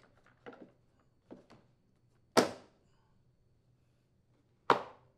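Replacement rear axle for a Craftsman push mower being seated and snapped into the retaining tabs of the plastic deck housing: a few light knocks, then two sharp snaps a little over two seconds apart.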